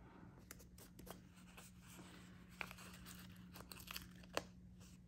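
Faint rustling and crinkling of a paper sticker sheet as small bow stickers are peeled off and pressed onto planner pages, with a few soft ticks, over a low steady hum.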